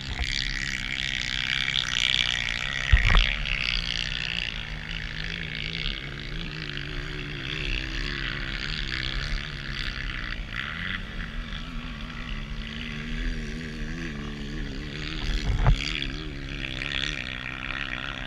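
Trail motorcycle engines running with a wavering, droning pitch as riders work at a steep dirt hill climb, with a few short knocks.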